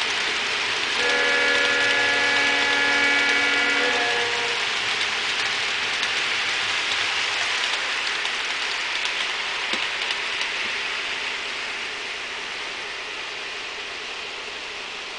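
Model freight train rolling along the layout's track: a steady hiss of wheels on rail that fades as the last cars move off. About a second in, a train chime of several steady notes sounding together plays for about three seconds.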